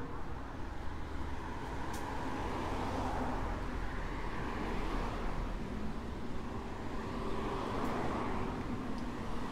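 Road traffic: cars passing one after another, their tyre noise swelling and fading several times over a steady background hum.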